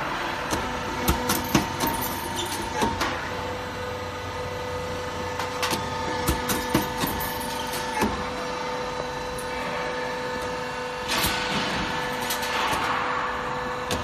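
Cable tray roll forming machine running: a steady mechanical hum with irregular metallic clicks and knocks as the perforated steel strip feeds through the forming rollers, and a brief rush of hissing noise near the end.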